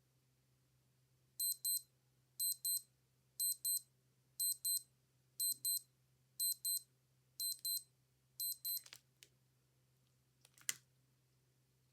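An old watch beeping: high-pitched double beeps, one pair about every second, eight pairs in all, stopping about nine seconds in. A few faint clicks and then one sharp click follow.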